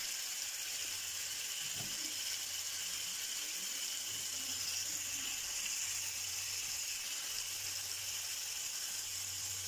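Lamb loin chops frying in garlic and herb butter in a pan: a steady sizzle.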